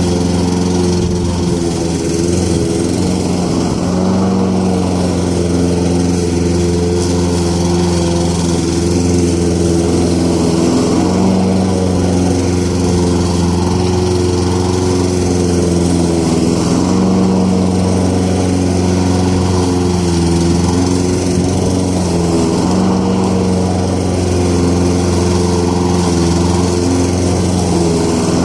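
Petrol lawn mower engine running steadily while cutting grass. Its pitch wavers slightly every few seconds as the load changes.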